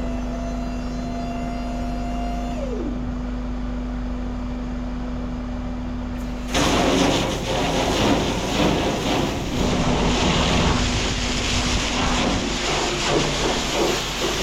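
A vehicle engine running steadily, with a higher whine that drops away and stops about two and a half seconds in. About six and a half seconds in it gives way abruptly to louder, rough rushing noise.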